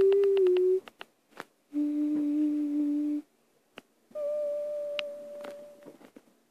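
A person humming long, steady notes with short pauses between them: a first note that ends under a second in, a lower note, and then a higher one that fades away, with a few soft clicks.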